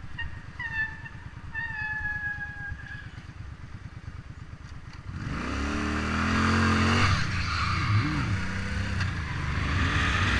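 Motorcycle engine idling with a low, even pulse, with two short high squeals falling slightly in pitch in the first three seconds. About five seconds in the engine revs and pulls away, its pitch rising and dropping through gear changes under rushing wind and tyre noise.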